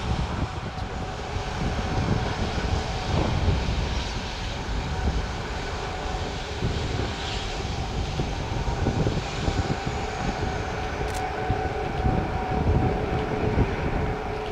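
Ilyushin Il-76 freighter's four D-30KP turbofan engines running at taxi power: several steady whining tones over a low rumble.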